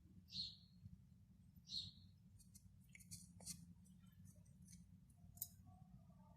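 Near silence with two short, high bird chirps about a second and a half apart, followed by scattered light clicks and taps.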